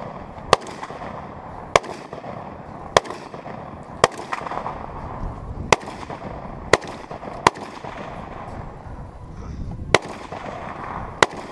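AK-47-style rifle fired single shot after single shot, nine sharp cracks at uneven gaps of roughly a second.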